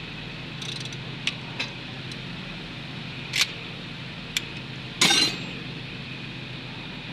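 Engine running steadily, with a few sharp metallic clinks over it; the loudest, slightly longer one comes about five seconds in.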